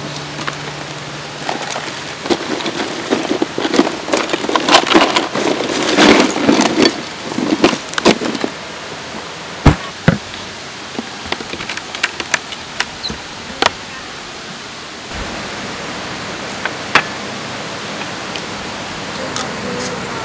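Hands rummaging in a hard-sided camping cooler, plastic bags and cans rustling and clinking for several seconds. Then a glass beer bottle knocks down hard twice, followed by scattered small clicks over a steady background hiss.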